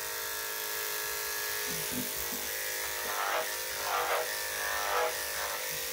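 Electric dog grooming clippers running with a steady motor hum as they shave a Cocker Spaniel's underbelly.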